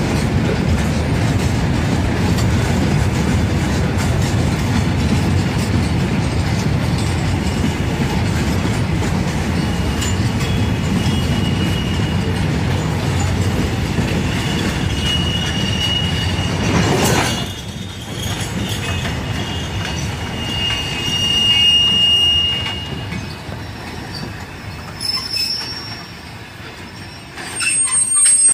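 Empty cement-clinker freight wagons rolling slowly past on the rails: a steady rumble with high-pitched wheel squeals that come and go several times. About two-thirds of the way through the rumble drops suddenly, and the squeals carry on over a quieter roll.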